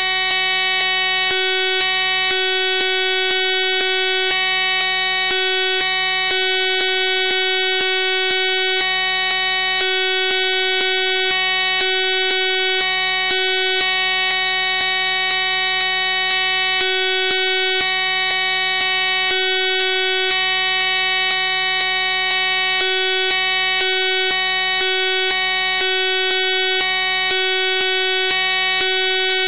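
Loud, steady electronic buzz made of many fixed tones at once, flickering in short blocky steps: a digital glitch in the recording rather than any sound in the room.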